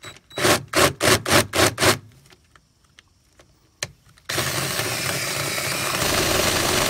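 Cordless drill with a step drill bit cutting a hole through the sheet-metal door sill. It gives about six short trigger bursts in the first two seconds, pauses, then runs steadily from about four seconds in.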